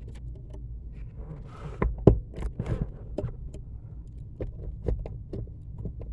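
Irregular clicks and knocks from a brake pedal position switch being worked onto the brake pedal under the dash of a 1999 Ford Explorer, with the brake-light relays clicking on and off as the pedal moves. A low hum runs underneath.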